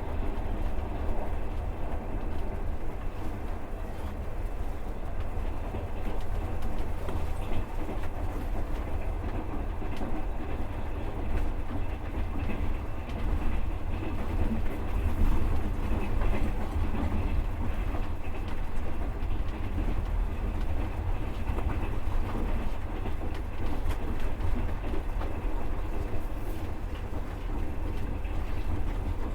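Passenger train running, heard from inside the carriage: a steady low rumble with the clatter of the wheels on the rails.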